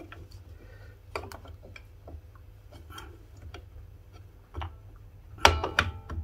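New brake shoes and springs clicking and tapping against the steel backplate of a Ford Consul Mk1 rear drum brake as they are fitted by hand. A louder metallic clank with brief ringing comes about five and a half seconds in.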